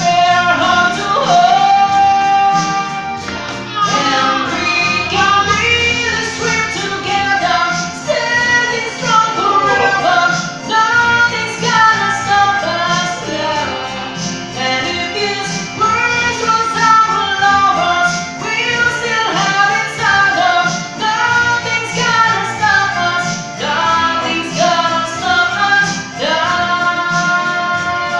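A man singing a song into a handheld microphone over backing music, with long held and gliding notes.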